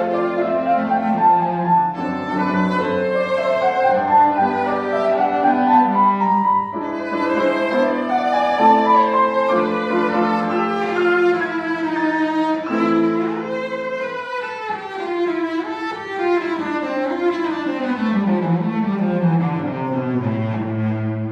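Cellos playing classical music in several parts at once, a melody in the upper range over lower voices. Near the end a line runs down into the low register.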